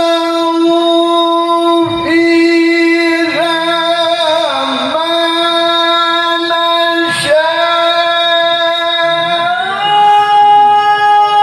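A man's voice in melodic Qur'an recitation (tilawah), drawing out a long vowel on sustained notes with ornamented melismatic turns, then stepping up to a higher held note near the end.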